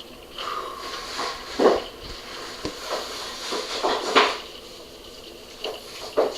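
Steady rain falling, a soft hiss with heavy drops splashing and plinking at irregular moments, the loudest hits near two seconds and four seconds in.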